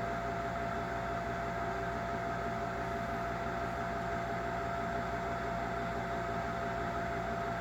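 Gibson furnace running: a steady mechanical hum with a constant high-pitched tone over it.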